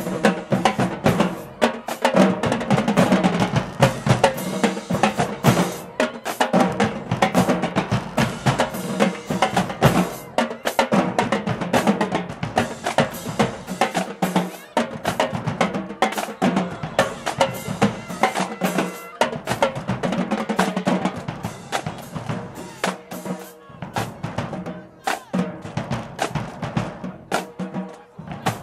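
Marching band drumline playing a continuous cadence on bass drums and snare drums, a dense, steady pattern of strikes.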